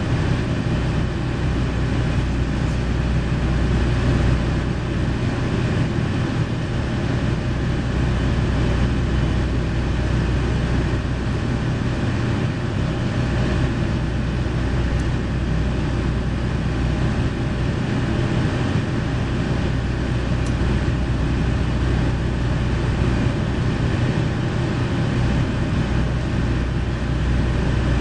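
JR Shikoku KiHa 40 series diesel railcar standing with its diesel engine idling, heard inside the passenger cabin as a steady low hum that does not change.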